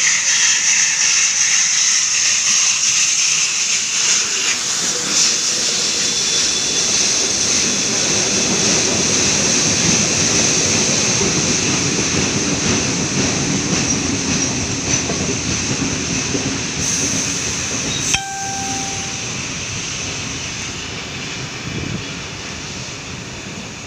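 Steam locomotive 5917, a NSWGR D59 class 2-8-2, pulling out and passing with steam hissing, followed by its train of carriages rolling past with a steady rumble of wheels on rail. The sound slowly fades as the train draws away, and there is one sharp click about eighteen seconds in.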